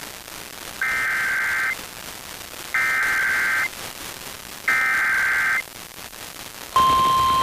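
Emergency Alert System SAME header: three identical bursts of warbling data tones, each just under a second long and about two seconds apart. Near the end, the steady single-pitch warning alarm tone of a weather radio alert starts and holds.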